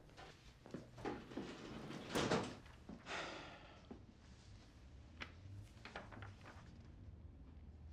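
Quiet handling sounds: scattered light knocks and a thud about two seconds in, then the rustle and flick of a large ledger's paper pages being turned.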